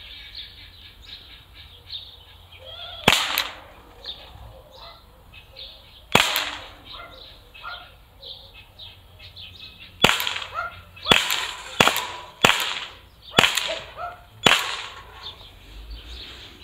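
Umarex T4E Glock 17 Gen 5 .43-calibre CO2 blowback pistol firing eight shots: two about three seconds apart, then six in quicker succession at roughly one a second. Birds chirp in the background.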